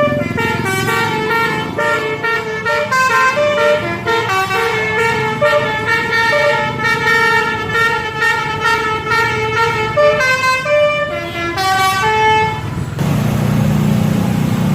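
Basuri 'telolet' bus horn, a multi-note musical air horn, playing a quick tune of stepped notes. It stops about two seconds before the end, and a low rumble follows.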